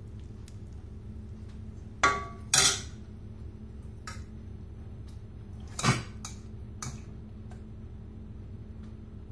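A steel serving ladle clinking against a stainless steel plate as sambar is served onto rice. There are two sharp, ringing clinks a little after two seconds in, another about two-thirds of the way through, and lighter taps after it, over a steady low hum.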